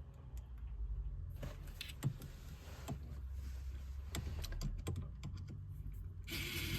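Scattered light clicks and knocks of hands working at a car's gear shift knob to remove it, over a low rumble. Near the end a steady hiss with a low hum starts suddenly.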